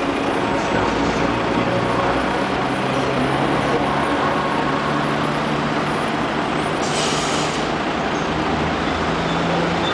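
Steady city street traffic noise, with the low drone of a heavy vehicle's engine and a short hiss about seven seconds in.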